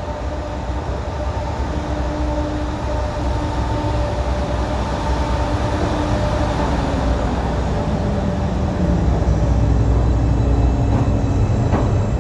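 Class 88 bi-mode locomotive 88004 drawing slowly into the platform and passing close by. Its low rumble grows steadily louder as it nears, with a few steady hum tones over it in the first half and a few light clicks near the end.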